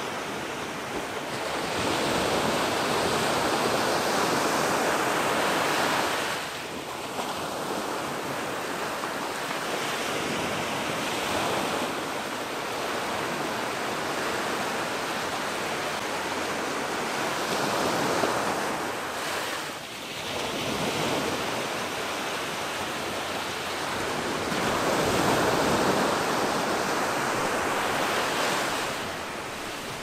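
Ocean waves breaking and washing onto the shore, in long surges of surf noise several seconds each, with brief lulls about 6 and 20 seconds in.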